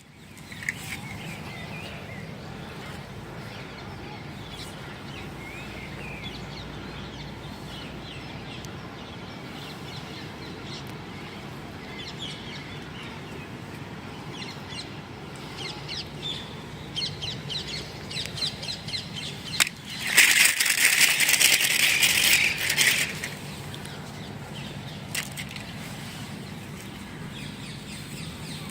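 Toy packaging being handled and opened: light crackles and clicks, then a loud crinkling rustle for about three seconds about two-thirds of the way in.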